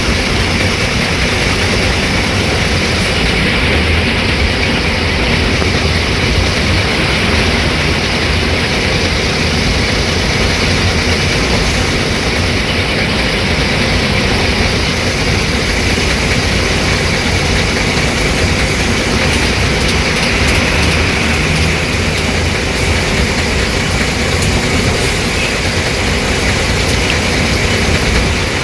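Tata 1510 bus diesel engine running steadily at an even speed, with a deep hum and a hissing upper band.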